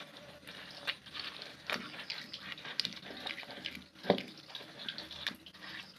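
Stone pestle grinding peanuts and palm sugar into rujak seasoning in a stone mortar (cobek, ulekan): irregular scraping and crunching with small clicks. One sharper knock about four seconds in.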